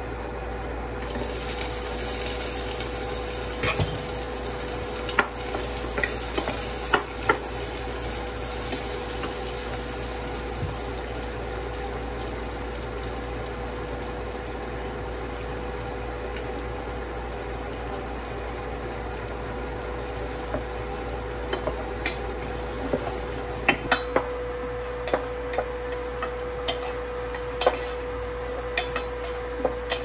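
Sliced onions and garlic sizzling in a pot on an induction cooktop, a steady hiss over a faint hum. A wooden spoon stirs them, knocking and scraping against the pot in scattered sharp clicks, with a cluster early on and another near the end.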